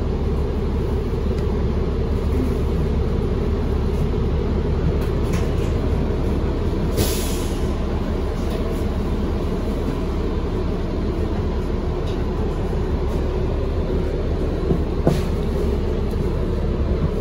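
Steady drone of a DC Circulator transit bus's engine and road noise, heard from inside the bus while it is moving. There is a brief hiss about seven seconds in and a sharp click near fifteen seconds.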